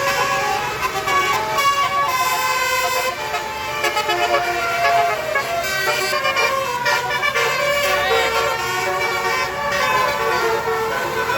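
Bus 'telolet basuri' musical horn playing a tune, a continuous run of horn notes changing pitch from one to the next.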